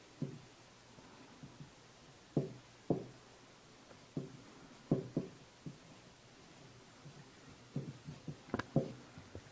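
Heated Nakwha burning iron dabbing and pressing on hanji paper: a string of soft, short taps at irregular intervals, in clusters about two, five and eight to nine seconds in.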